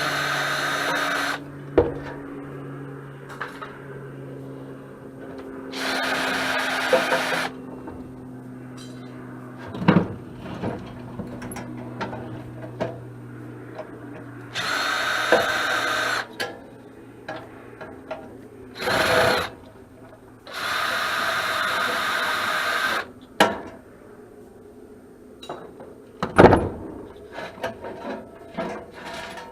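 Power drill spinning a quarter-inch socket on an extension to run nuts off a dehumidifier's sheet-metal housing. It runs in several short bursts of one to two seconds, with clicks and clanks of metal parts between them and a sharp knock near the end.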